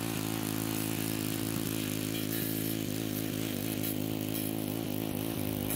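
Gas-powered walk-behind lawn edger's small engine running steadily under load, its pitch wavering slightly, as the blade cuts a narrow trench through lawn turf.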